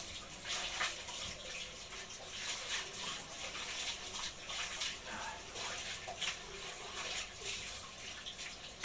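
Water splashing irregularly in a small tiled bathroom as someone washes by hand at floor level.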